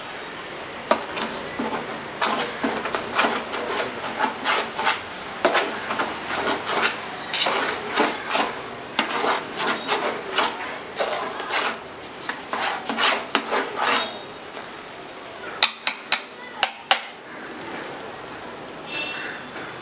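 Metal spatula and rice being stirred in an aluminium pot: irregular scraping and clinking of metal on the pot with the rustle of rice grains. A quick run of four sharp metallic clicks comes near the end, then it goes quieter.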